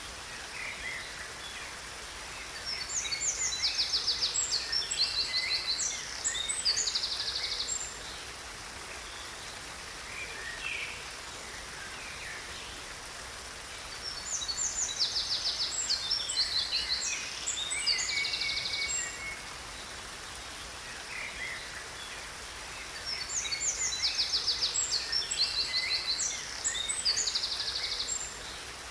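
Songbirds singing in three nearly identical bouts about ten seconds apart, each with fast high trills and chirps, over the steady rush of a waterfall.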